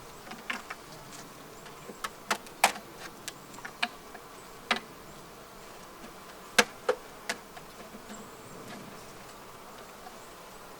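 Honeybees buzzing steadily around an open hive, with a dozen or so sharp knocks and clicks of hive equipment being handled, the loudest about two and a half and six and a half seconds in.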